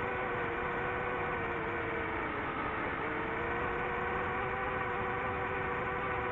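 DJI FPV drone's electric motors and propellers whining steadily in flight, the pitch dipping slightly about halfway through.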